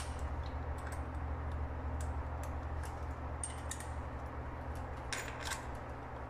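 A few light, scattered metal clicks and ticks as a small hand tool works the metal end fitting of a high-voltage cable termination part, over a steady low hum.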